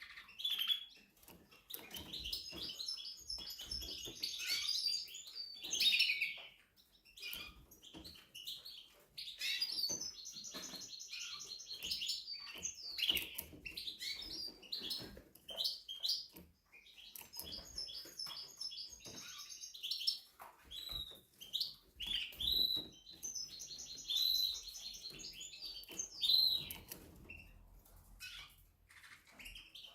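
A Spanish Timbrado song canary singing: long phrases of rapid trills and gliding notes, broken by short pauses.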